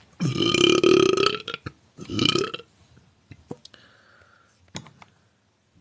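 A woman belching twice: one long burp lasting over a second, then a shorter second burp.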